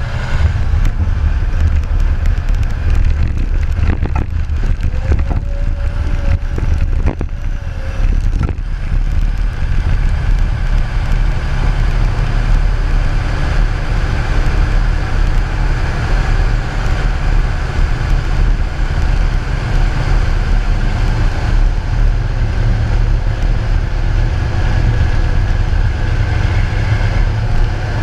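A heavy loader's diesel engine running steadily with a deep rumble, heard close up from a camera on its bucket. Rattles and knocks come through in the first eight seconds or so, with a short whine around five to eight seconds in.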